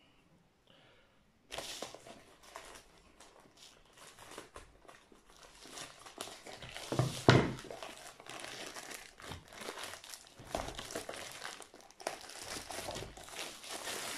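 Plastic mailer bag crinkling and rustling as it is handled and pulled open, starting about a second and a half in, with one louder knock about seven seconds in.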